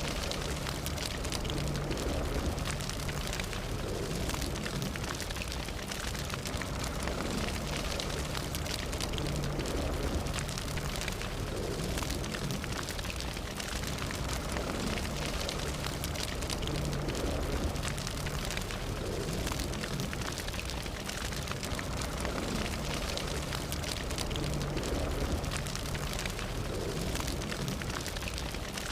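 Fire burning steadily, with dense irregular crackling over a low rumble.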